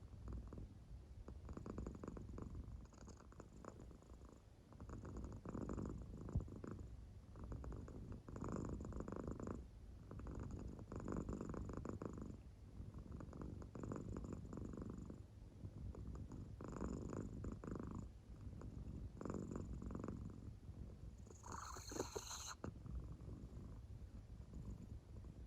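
American Shorthair cat deeply asleep, purring and snoring softly in slow swells, roughly one with each breath every two to three seconds. A brief sharper sound cuts in once near the end.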